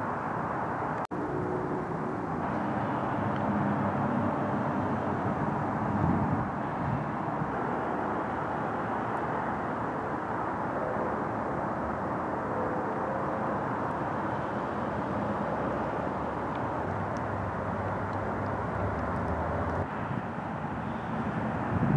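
Steady outdoor background noise of distant road traffic, with the low hum of a vehicle engine swelling now and then. The sound drops out for an instant about a second in.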